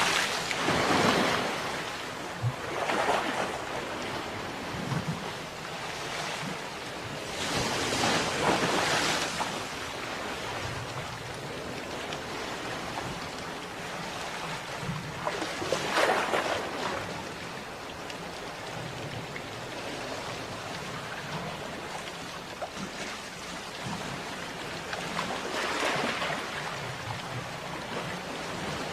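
Sea waves breaking on a shore: a steady wash of surf that swells louder each time a wave breaks, five times at uneven intervals several seconds apart.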